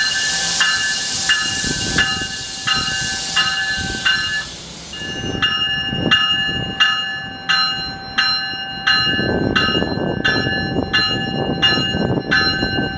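NJ Transit Multilevel commuter train's bell ringing at about one and a half strokes a second as the train pulls into the station. It pauses for about a second near the four-second mark, then carries on. For the first few seconds the cars passing close by add a high rushing hiss, and a low rumble comes in during the second half.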